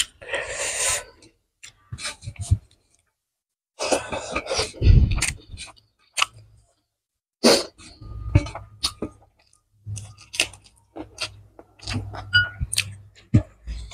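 Close-miked eating sounds of a person eating rice by hand: wet chewing and lip smacks as many short clicks, with two longer noisy bursts, one right at the start and one about four seconds in.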